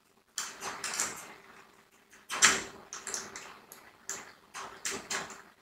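Handling noise as parts are fitted onto a camcorder: a string of short scrapes and clicks, the loudest about two and a half seconds in.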